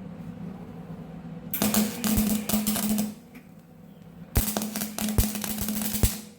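Electric welder's arc crackling and sputtering in two runs of about a second and a half each, with a steady electrical hum under them, as weld is laid on the steel panel of a Bobcat S130 skid-steer loader.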